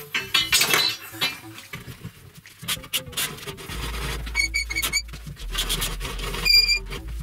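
Steel rod clinking against the steel frame and bearing rollers of a homemade rod bender as it is fed in, then scraping and rubbing as it is drawn through the rollers, with two short high squeals of metal on metal.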